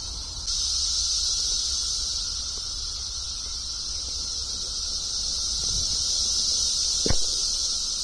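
A chorus of cicadas droning steadily at a high pitch, getting louder about half a second in. A brief knock about seven seconds in.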